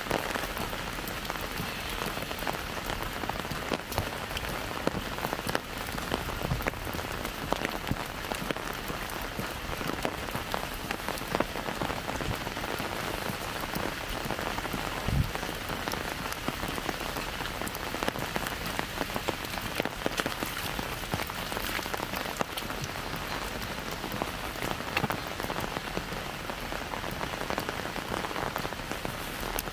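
Light rain falling on an umbrella and the surrounding pavement: a steady hiss of rain with dense, irregular drop ticks, and one duller knock about halfway through.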